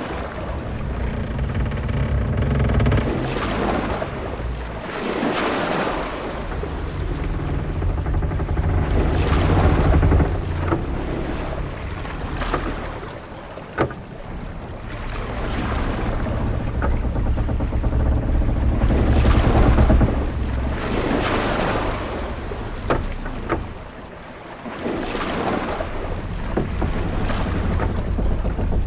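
Sea waves washing against a ship at sea, with wind, in swells that rise and fall every few seconds over a low rumble. A couple of sharp knocks sound, one near the middle and one about two-thirds through.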